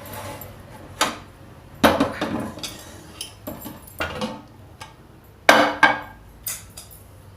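Steel pressure cooker and kitchen vessels clanking as they are handled, about half a dozen separate knocks and clinks.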